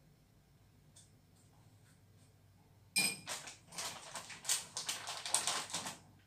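Plastic cocoa-powder bag crinkling loudly as it is folded shut, for about three seconds starting halfway through, after a few faint ticks.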